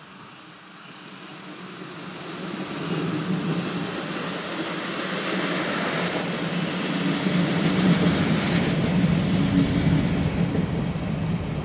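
Train running on the tracks, a rumble with hiss that grows louder over the first three seconds and then stays loud.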